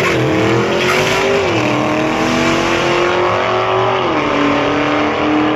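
Drag-racing cars' engines at full throttle accelerating down the strip, the pitch dropping at each upshift: just after the start, about a second and a half in, and about four seconds in.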